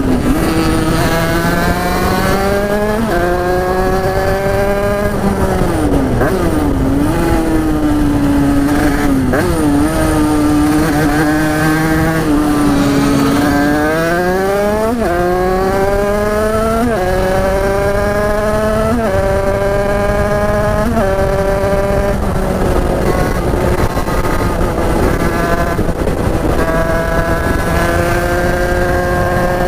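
Big-bore-kitted Derbi two-stroke motorcycle engine ridden hard under full throttle. Its pitch climbs through the revs and drops back at each gear change, over several upshifts in a row. It eases off and picks up again around a quarter of the way in.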